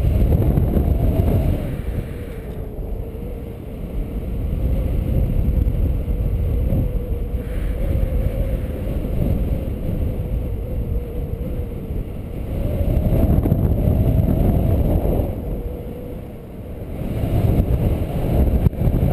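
Wind buffeting the microphone of a paraglider pilot's camera in flight: a low, rushing rumble that swells and eases every few seconds, with a faint steady hum underneath.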